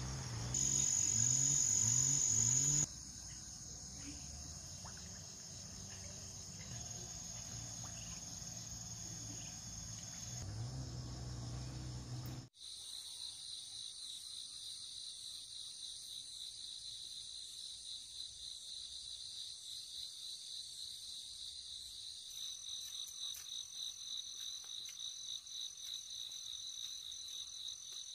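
Insects chirring in a steady, high-pitched chorus. A louder passage in the first three seconds carries a few low rising tones. The chorus changes abruptly about twelve seconds in to a finer pulsing trill, and a second high tone joins near the end.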